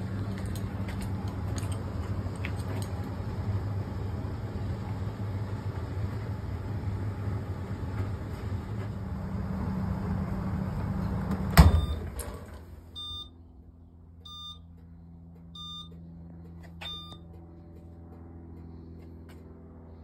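Fisher & Paykel ED55NZ clothes dryer running, its motor humming steadily while the drum tumbles the load. About twelve seconds in, a sharp click stops it and the running noise dies away. Four short electronic beeps follow, evenly spaced.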